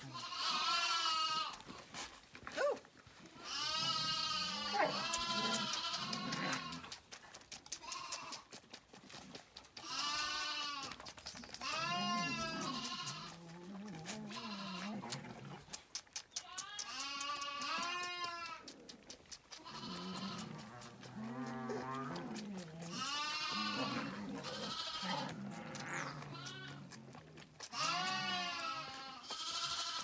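Sheep bleating over and over, about eight long, wavering bleats a few seconds apart.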